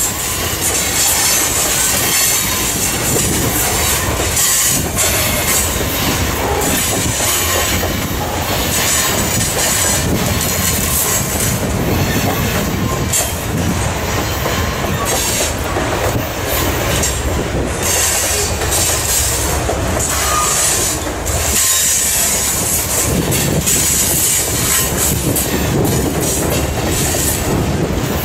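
Freight train of covered grain hopper cars rolling past close by: a steady rumble of steel wheels on rail with clicking over the rail joints, and a high wheel squeal that comes and goes.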